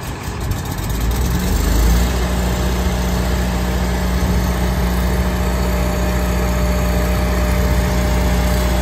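Miller Trailblazer 302 gasoline welder-generator starting up: its engine comes up to speed over the first couple of seconds, then runs steadily with a low, even drone.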